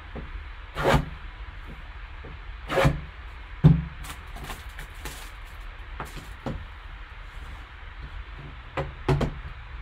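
Gloved hands handling a shrink-wrapped cardboard trading-card box on a tabletop: a few scattered dull knocks and taps as it is turned and set down, over a low steady hum.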